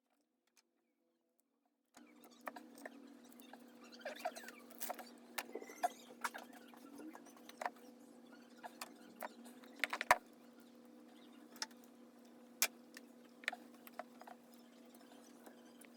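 Faint small clicks, taps and rustles of hands working on an engine wiring loom, moving wires and connector pins, over a steady low hum. The loudest click comes about ten seconds in; the first two seconds are almost silent.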